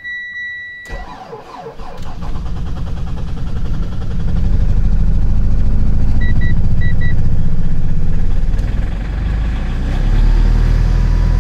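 Mitsubishi Pajero Sport diesel engine being cold-started at −32 °C. It cranks briefly, catches within a couple of seconds and runs up to a steady, loud cold idle, a hard start. Four short dashboard chime beeps sound about six to seven seconds in.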